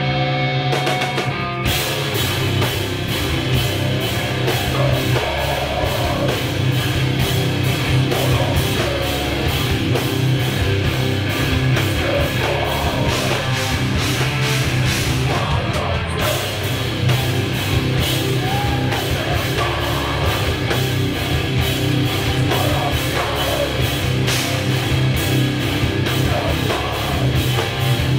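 Live heavy metal band playing loud: distorted electric guitars and a Tama drum kit. Held guitar notes open, then the drums crash in about two seconds in and drive a fast, steady beat, with a brief break in the cymbals about halfway through.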